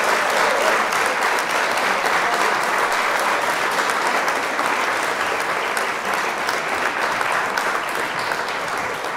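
Audience applause with many individual claps, steady and slowly fading toward the end.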